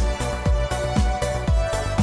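Upbeat electronic background music with a kick drum beating about twice a second under a sustained melody.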